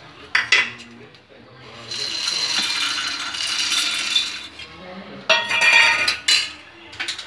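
Roasted chickpeas and poppy seeds rattling in a steel mixer-grinder jar, in two spells of a few seconds each (a longer one, then a shorter one), with a few clicks and knocks around them.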